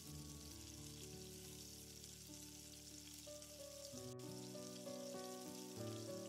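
Oil and ghee sizzling steadily in a pan as sliced garlic, green chilies and dried red chilies fry for a dal tadka, with soft background music over it.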